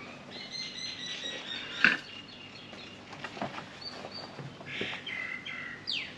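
Birds chirping and calling, with a falling whistle near the end, over a few sharp knocks from a ceramic flower pot and soil being handled; the loudest knock comes about two seconds in.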